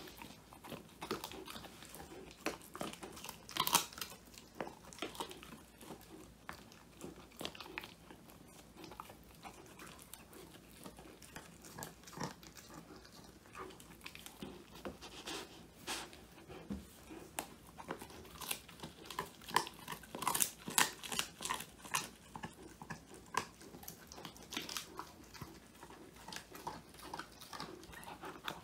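Old English Sheepdog puppy chewing a handmade whole-quail treat: crunching and cracking bites at irregular intervals, coming thicker about two-thirds of the way in.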